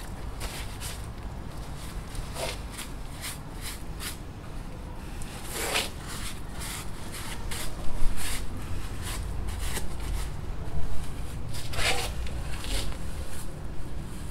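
Rustling and crinkling of a crumpled white bundle being picked up and handled close to the face: a string of short sharp rustles, with two louder crinkles partway through and near the end, over a steady low rumble.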